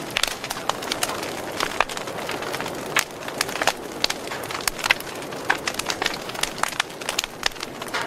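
Wood logs burning in an open fire, crackling with many irregular sharp pops over a soft steady hiss of flame; the loudest pops come about three and five seconds in.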